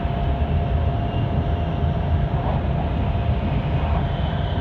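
Hokuriku Shinkansen train running, heard inside the passenger car: a steady, even rumble with a faint constant whine.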